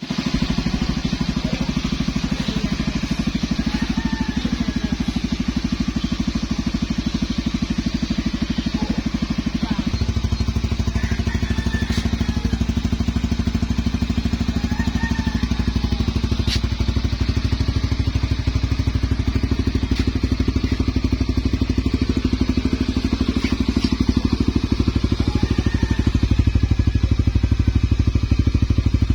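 Honda Sonic 150's single-cylinder four-stroke engine running steadily through an MVRI 'silent pipe' aftermarket exhaust. About ten seconds in, the low exhaust note gets stronger and stays that way.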